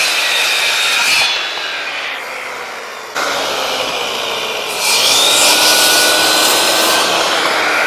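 Milwaukee 7¼-inch corded circular saw running and cutting through a wooden board. It eases off for a couple of seconds partway through, then bites in again louder about five seconds in.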